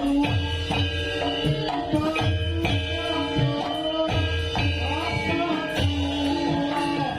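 Javanese gamelan music during a wayang kulit limbukan interlude: sustained pitched instruments over a low hand-drum beat about once a second.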